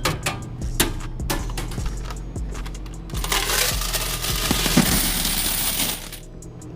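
Coins clinking: scattered metallic clicks, then about three seconds of a dense rush of coins pouring and rattling together.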